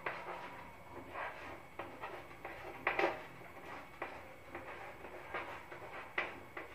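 Chalk writing on a blackboard: irregular short taps and scratches as the letters are stroked out, a few to each second.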